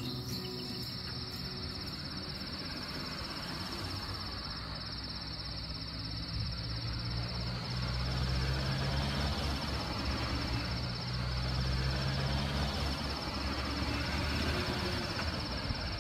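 Crickets chirping in a continuous high, fast trill, broken only by a few short pauses, over a low rumble.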